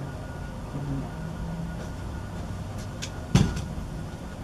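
A single sharp knock about three and a half seconds in, over a steady low background rumble.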